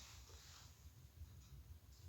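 Near silence: a faint low rumble with a few weak small ticks.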